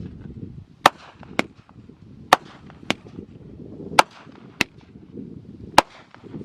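Firework bangs: about seven sharp cracks at irregular intervals, less than a second to more than a second apart.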